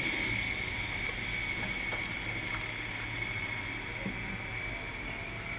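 Washing machine spin motor running free with no load: a steady high whine over a low electrical hum.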